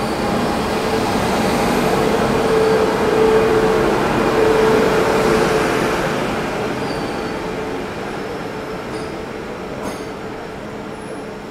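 Passenger train coaches rolling past along a platform as the Somnath–Jabalpur Express pulls in behind its WAP-7 electric locomotive. A steady squeal rides over the rumble. The sound is loudest a few seconds in, then dies away as the train slows toward a stop.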